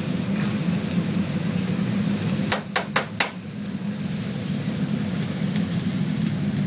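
Four quick taps of a cooking utensil knocked against the pan of simmering red curry sauce, over a steady low hum and hiss.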